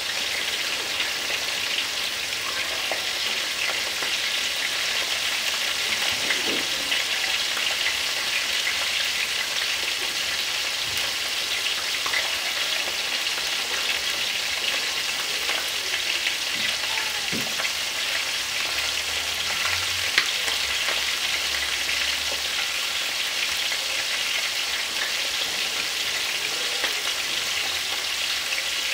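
Fish frying in bubbling oil in an electric pan: a steady sizzle with fine crackling throughout, and one sharp pop about twenty seconds in.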